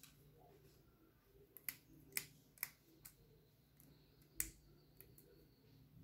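A few faint, sharp clicks and ticks at irregular intervals, about eight in all, the loudest about two seconds and four and a half seconds in: small metal and plastic parts of a washing machine's water inlet valve, its spring and plunger, being handled and stretched by hand.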